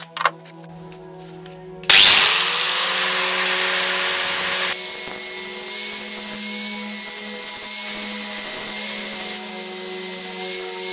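Angle grinder starting suddenly about two seconds in with a rising whine, then grinding the rusty steel of an old axe head with a steady high whine.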